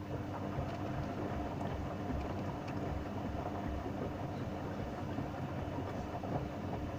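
Hoover washing machine running: a steady motor hum over an uneven low rumbling from the turning drum.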